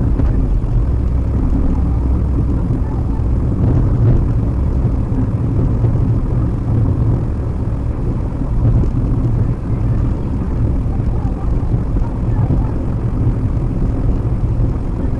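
Steady low road and engine rumble inside the cabin of a moving Maruti Suzuki WagonR: tyre noise and the petrol engine running at cruising speed.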